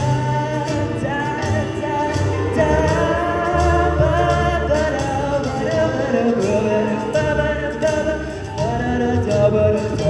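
A cappella choir singing in several harmonised parts, with a soloist on a microphone over a sung bass line and a steady beat of vocal percussion.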